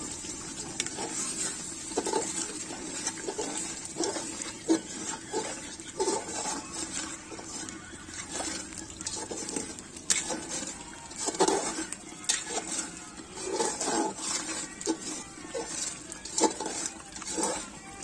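Metal ladle stirring a watery curry in an aluminium pot, scraping and knocking against the pot's sides and bottom in an irregular run of clinks.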